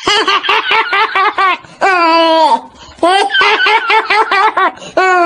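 High-pitched human laughter: runs of quick rhythmic ha-ha bursts alternating with long drawn-out laughs that trail off, laid over the turtle as if it were laughing.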